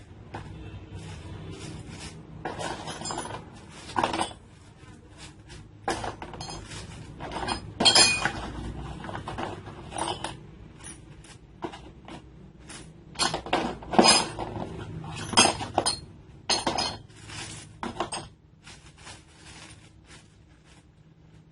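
Metal parts of a chainsaw bar-and-chain attachment for an angle grinder clinking and rattling as they are handled and fitted by hand, in irregular sharp clinks with no motor running.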